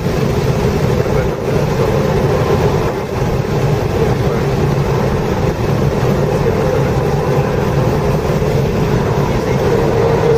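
Subaru WRX's turbocharged flat-four engine heard from inside the cabin at track speed, mixed with road and wind noise. The sound dips briefly about a second in and again around three seconds in as the car slows for a corner, then runs on steadily.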